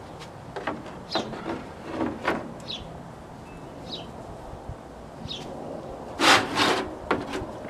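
Red Ducati 888 fairing being set down and shifted on metal stands on a metal table: scattered knocks and rubbing, with a louder scrape about six seconds in. A bird chirps briefly every second or so in the background.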